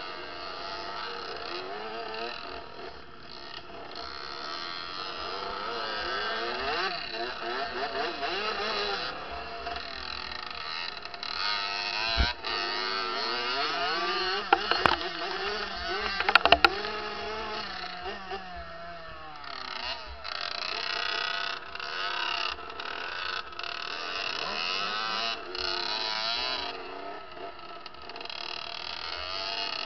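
Kawasaki KX65 two-stroke dirt bike engine revving up and down as it is ridden over a rough, muddy track, with other dirt bikes close by. A few sharp knocks come midway and are the loudest sounds.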